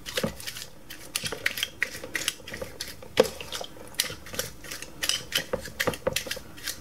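Paintbrush scrubbing the drumming bunny toy's plastic gear mechanism in a tub of degreaser, with quick irregular scratchy strokes and clicks as the bristles and plastic parts knock together, the sharpest click about three seconds in. It is a cleaning-off of leaked battery residue.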